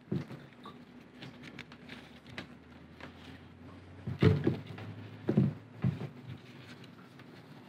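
Gloved hands working a wire at the opening of a plastic fuel tank: scattered rustling and light clicks, with a few dull thumps against the tank about four and five seconds in.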